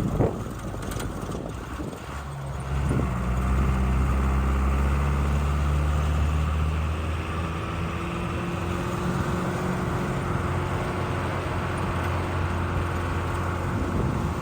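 A motor vehicle's engine running at a steady, unchanging pitch. A few knocks and rushing noise, like wind on the microphone, come in the first couple of seconds.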